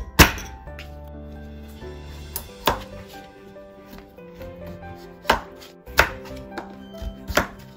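A kitchen knife chopping through a kabocha pumpkin onto a paper-covered wooden cutting board: about half a dozen sharp knocks at uneven intervals, with two close together near the end, over soft background music.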